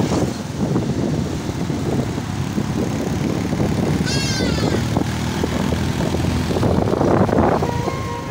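Motorcycle engine running steadily under way, with road noise. A brief high-pitched squeak about four seconds in.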